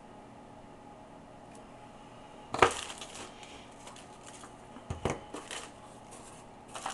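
Small hand tools, among them a pair of flush wire cutters, being handled and set down on a workbench: one sharp clack about two and a half seconds in, then lighter clicks and rattles at irregular intervals.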